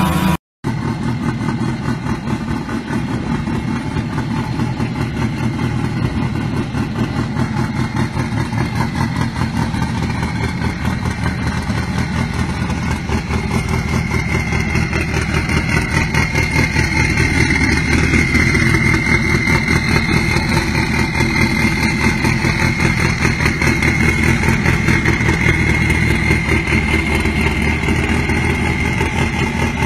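Classic Volkswagen Beetle engine idling steadily with a rapid, even exhaust pulse, after a split-second break near the start.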